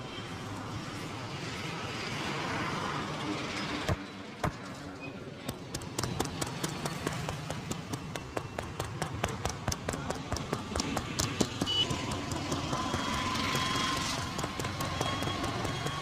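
Quick, rhythmic percussive taps of a hands-on head massage, several a second, starting about six seconds in, over steady street traffic noise.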